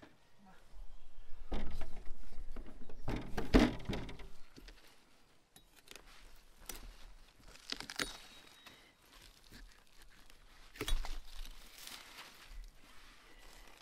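Pumpkin vines and dry leaves rustling and crackling as they are handled and pushed aside. The noise is densest in the first few seconds, then comes a few sharper snaps and clicks.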